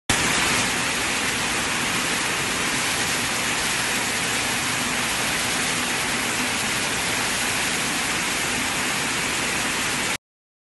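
Picanol OmniPlus 800 air-jet weaving looms running together: a dense, steady hiss with a faint low hum underneath, cutting off suddenly near the end.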